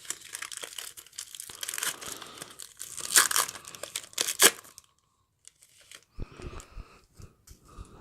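Trading card pack wrapper crinkling and being torn open by hand, with two sharper rips about three and four and a half seconds in. After that, only faint handling of the cards and a few soft low thumps.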